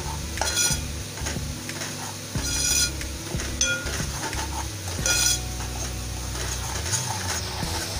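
Metal spoon stirring a spice paste frying in oil in a cooking pot, scraping and clinking against the pot's side four times with short ringing clinks, over a low sizzle.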